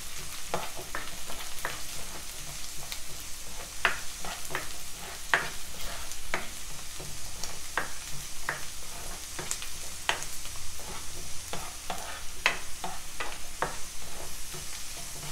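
Chopped onions, green chillies and ginger-garlic sizzling in oil in a nonstick kadai while a spatula stirs them, scraping and knocking against the pan many times at an uneven pace.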